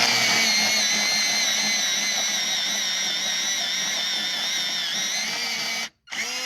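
Hands-free electric pencil sharpener motor running with a steady whine as it sharpens a wrapped pencil. The motor stops abruptly near the end, then starts again briefly.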